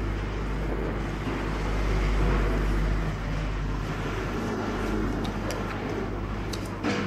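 Steady low rumble of street traffic, swelling for a second or so about two seconds in, with a short clink of cutlery against a ceramic soup bowl near the end.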